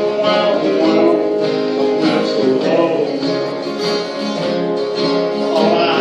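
A man singing a country song to his own strummed acoustic guitar.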